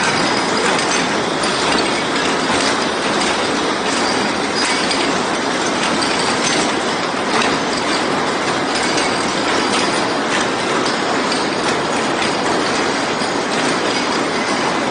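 Rows of steel wire rope braiding machines running together: a loud, steady, dense mechanical clatter and rattle with no pauses.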